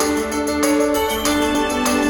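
Background music carried by an organ-like electronic keyboard, with a steady beat.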